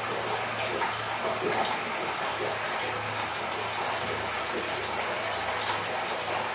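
Hot water pouring steadily from a shower hose into a bucket as it fills, over a low steady hum from the hot-water shower unit's motor.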